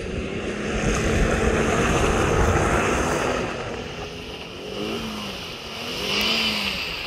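Off-road 4x4's engine working hard under load on a muddy hill climb, with a loud rush of noise over the first half. Near the end the engine revs up and falls back twice.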